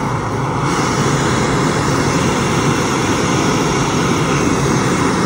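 MSR Pocket Rocket canister stove burning isobutane from a small screw-on canister, its burner giving a steady hiss. The hiss brightens about a second in as the valve is opened further.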